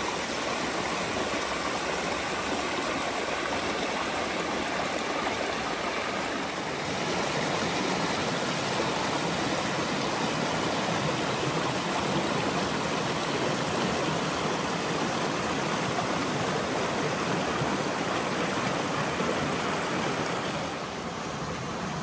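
Shallow rocky creek rushing and splashing over stones and small cascades: a steady rush that grows a little louder about a third of the way in and eases just before the end.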